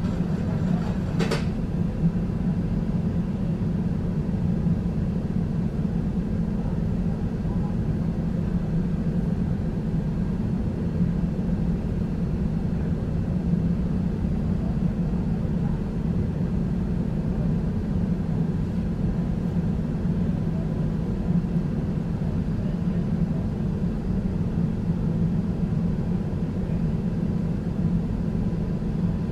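Steady low hum of a tram standing still, with one short click about a second in.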